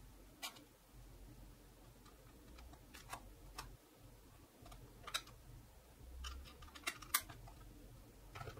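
Scattered faint clicks and light taps of a plastic network cable tester being handled and turned over in the hands.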